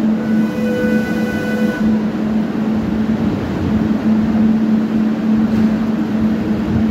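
Barcelona Metro CAF 6000-series train standing at the platform with its doors open: a steady low hum from the train over the general platform din. About half a second in, a held electronic tone sounds for roughly a second and a half.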